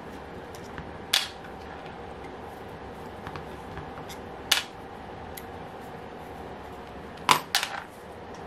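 Sharp little metal clicks of a hex key and head screws being handled as the cylinder head of a model glow engine is unbolted: one click about a second in, another midway, and two in quick succession near the end. A steady faint hum lies underneath.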